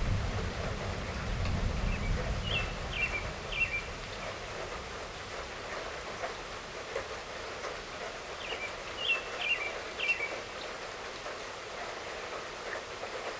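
Steady light rainfall, with a low rumble of distant thunder dying away over the first few seconds. A bird calls twice in short runs of three or four chirps.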